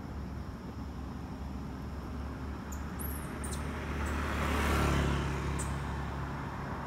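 A road vehicle passing: a low rumble that swells to a peak about five seconds in and then fades, over steady low background noise.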